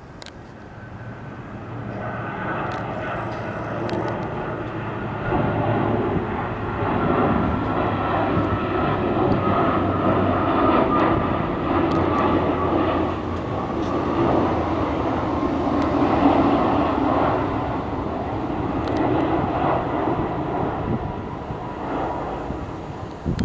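A US Navy Boeing P-8 Poseidon's twin turbofan jet engines passing directly overhead. The roar builds over the first few seconds, stays loud for about fifteen seconds, then begins to fade near the end.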